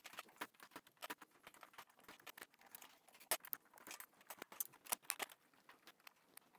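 Plastic keycaps being pried off an Atari 1040STF keyboard with a keycap puller, giving irregular sharp plastic clicks and snaps, several a second.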